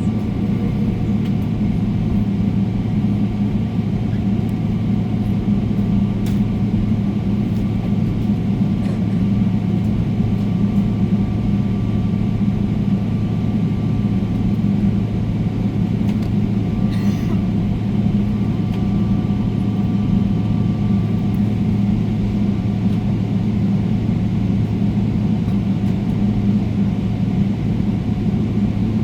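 Steady cabin noise inside a Boeing 777-300ER on the ground: an even low hum and rumble that does not change.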